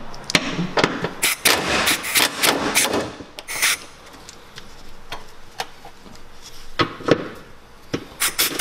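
Socket wrench on a long extension clicking and clinking against metal in irregular bursts as the transmission's mounting bolts are undone from under the car. The clicks are thickest in the first three seconds, sparse in the middle and come again near the end.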